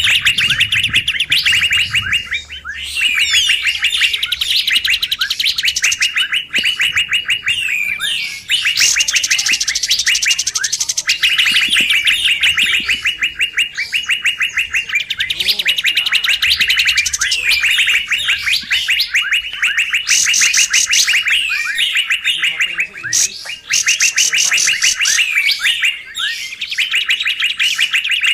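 Lure recording of kapas tembak birds in busy, rapid chattering calls. The calls come in dense bursts of a few seconds with brief pauses between them, repeating throughout.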